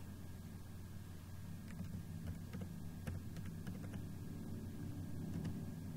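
Faint, scattered keystrokes on a computer keyboard over a low steady hum.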